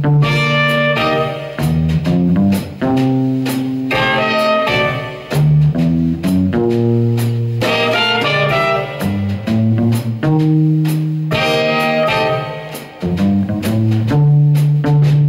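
Live jazz combo playing: electric bass guitar notes prominent in the low end under piano, with drums and cymbal strokes.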